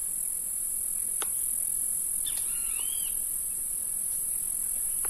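Steady high-pitched insect drone, with a bird's short whistled chirps about two and a half seconds in.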